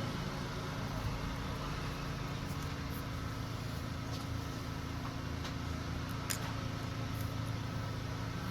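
Steady air-conditioner hum, with a few faint light clicks scattered through it.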